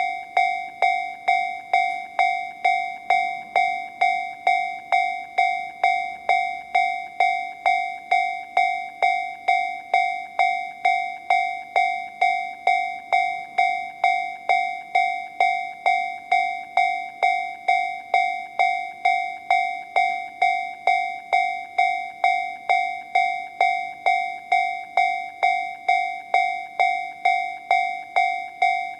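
Japanese railway level-crossing alarm: a Toho Denki TA3-VR electronic crossing alarm sound generator playing the Tobu Railway 'C' tone. It gives a loud, bell-like ding that repeats evenly at just under two strikes a second, each stroke ringing and fading quickly.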